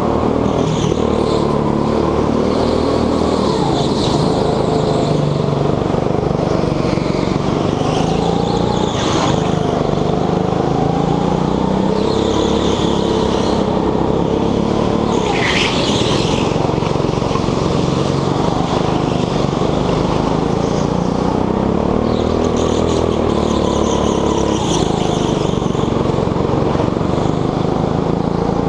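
Rental petrol go-kart engine running hard from on board, its revs falling and climbing again several times through the corners. A couple of brief high squeals cut in, about a third of the way in and about halfway.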